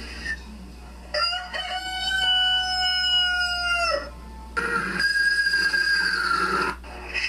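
A rooster crowing once, one long call lasting about three seconds. About half a second after it ends comes a second long animal call of about two seconds, its pitch falling slightly toward the end.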